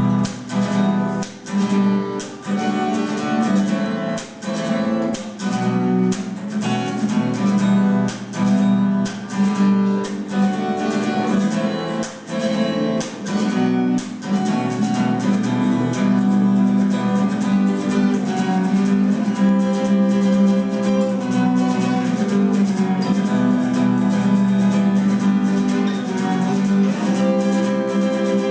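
Guitar playing strummed chords as a song's instrumental intro, with sharp chord strokes in the first half that smooth into steadier playing about halfway through.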